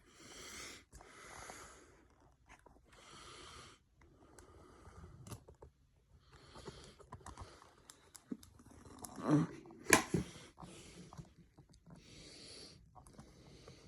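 Faint breathing close to the microphone, soft puffs every couple of seconds, with a few handling knocks and clicks about nine to ten seconds in.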